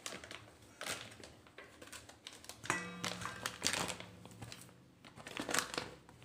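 Plastic spice packets crinkling and rustling as they are handled, in irregular bursts.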